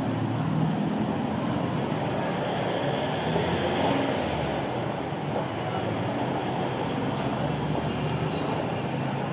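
Steady road traffic noise from passing cars and motorbikes, a little louder for a moment about four seconds in.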